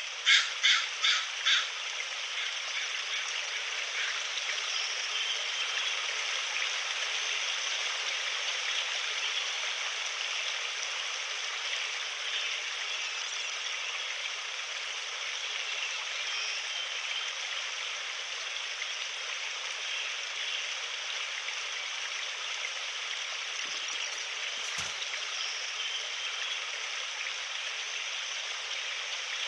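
Steady rushing of a river flowing beside the trail. Near the start come four short, loud calls in quick succession.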